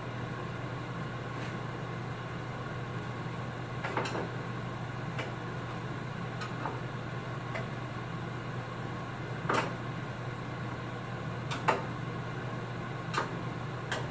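A handful of short, sharp knocks and clicks, spaced a few seconds apart and loudest about two-thirds of the way in, over a steady low hum.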